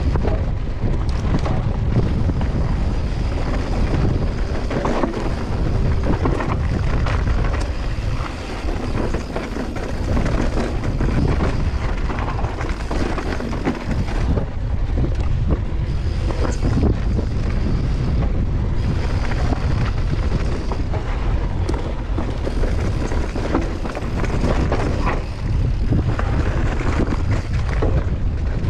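Wind buffeting the microphone on a mountain bike ridden fast down a dirt trail, with the bike rattling and clattering over the rough ground throughout.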